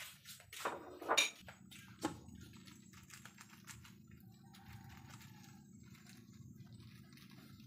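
A few sharp knocks of a utensil against a metal cooking pot, then light scattered clicking and pattering as dried small shrimp are spooned onto the ingredients in the pot, over a low steady hiss.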